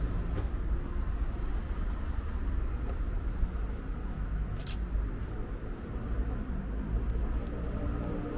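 Outdoor street ambience: a steady low rumble of traffic, with one short, sharp hiss about four and a half seconds in.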